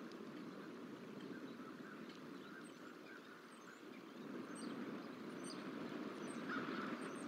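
Steady low rush of outdoor background noise, with faint, short high chirps and ticks scattered through it from about two seconds in.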